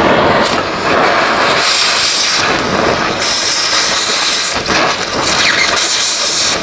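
Oxy-fuel cutting torch hissing as it cuts a tack-welded nut off a rusted exhaust flange stud, throwing sparks. The hiss rises to a harsher, louder blast three times as the cutting oxygen is pressed on against the metal.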